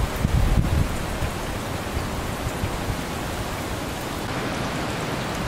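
Steady rain and storm wind, an even rushing hiss, with gusts buffeting the microphone as a low rumble in the first second.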